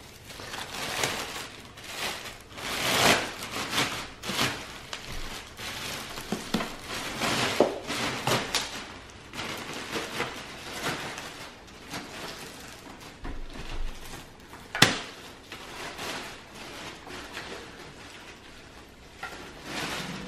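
Plastic packaging sheet rustling and crinkling in irregular bursts as an electric scooter wrapped in it is handled and lifted out of its box, with one sharp knock about fifteen seconds in.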